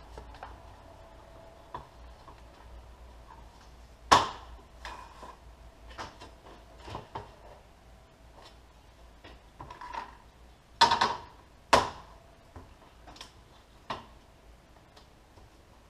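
Objects and tools being handled and set down on a workbench: scattered sharp knocks and clatters, the loudest about four seconds in and a close pair about eleven seconds in, with fainter handling noises between.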